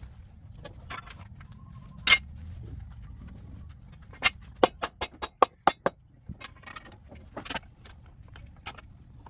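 Sharp knocks and taps of hard objects: one knock about two seconds in, a quick run of about seven taps around the middle, and another knock later, over a low steady hum.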